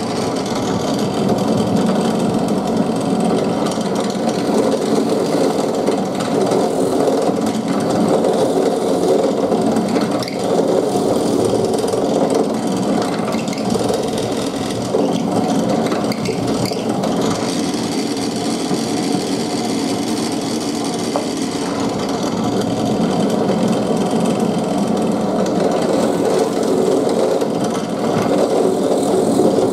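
Benchtop drill press motor running steadily while its bit bores into a wooden block.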